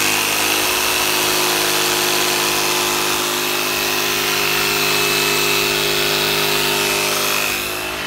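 Black & Decker corded jigsaw cutting a thin wood sheet, its motor running at a steady high whine with the blade chattering through the board, dying down near the end.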